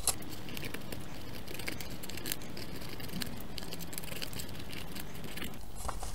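Scissors snipping off the ends of construction-paper strips: a scattered run of small, crisp cuts.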